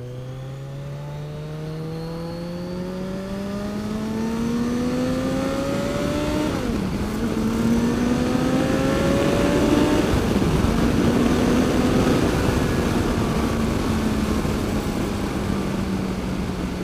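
Kawasaki Ninja 1000's inline-four engine accelerating, its pitch climbing with two upshifts about 7 and 10 seconds in, then holding steady at cruising speed. Rushing wind noise grows with the speed.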